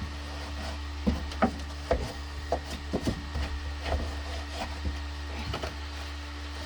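Irregular knocks, taps and clicks of parts and hand tools being handled during hand work on a heater box, about a dozen over a few seconds, over a steady low hum.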